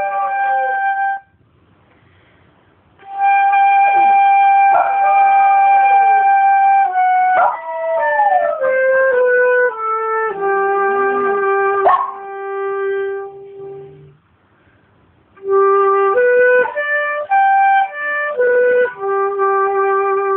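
Japanese Spitz dog howling along to a wind instrument playing a slow melody of held notes. The dog's howls glide up and fall away in pitch over the steady notes. The playing stops twice, briefly, about a second in and again about two-thirds of the way through.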